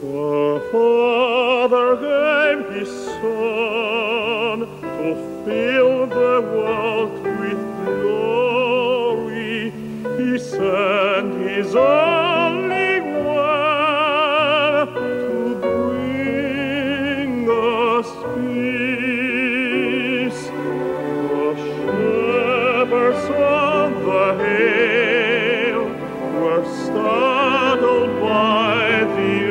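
Operatic solo singing with a wide, even vibrato on long held notes, over instrumental accompaniment.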